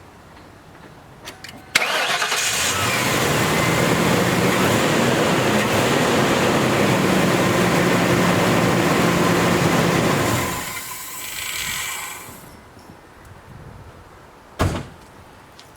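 1997 Crown Victoria Police Interceptor's 4.6-litre V8 starting about two seconds in and running steadily for about eight seconds, then stopping and dying away. It cranks and fires now that the bad battery cable behind the no-crank fault has been replaced. A single sharp knock near the end.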